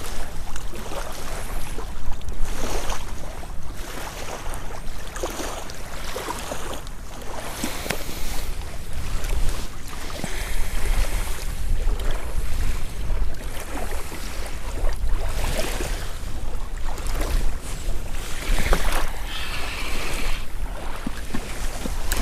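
Wind buffeting the microphone in an uneven low rumble, with irregular swells and scrapes of rustling noise.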